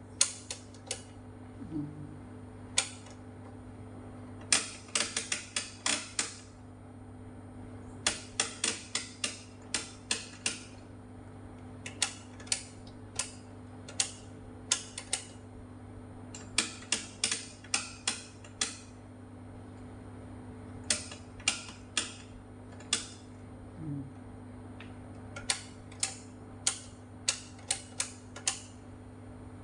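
Detented rotary knobs on an analog oscilloscope's front panel being turned, clicking in quick runs of several clicks with short pauses between. A steady low hum runs underneath.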